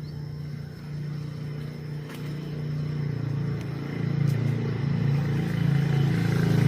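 A steady low hum like a motor or engine running, growing louder over the last few seconds and cutting off abruptly at the end.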